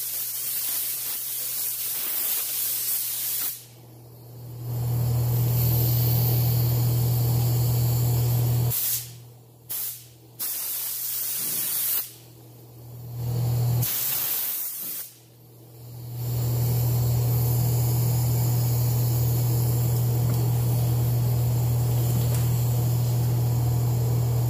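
Gravity-feed paint spray gun hissing as it lays clear coat, with a steady low hum underneath. The hiss breaks off briefly several times, then runs on steadily.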